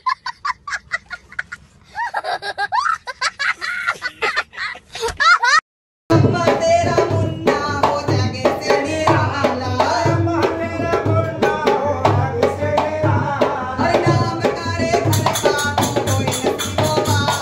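A small child laughing hard in quick bursts for about five and a half seconds. After a brief gap, a dholak drum starts a steady beat with singing over it.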